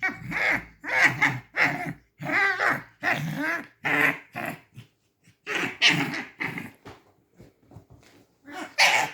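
Pet red fox making a run of short squeaky, growling calls, with a pause about seven seconds in and a louder squeal near the end.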